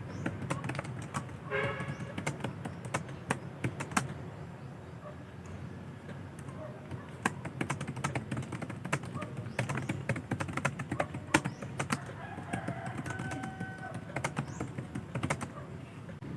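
Typing on a computer keyboard: irregular quick key clicks in uneven runs, over a steady low hum.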